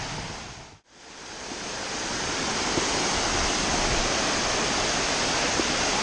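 Steady rush of a waterfall and its creek. The sound drops out almost to nothing briefly about a second in, then builds back up and holds steady, a little louder than before.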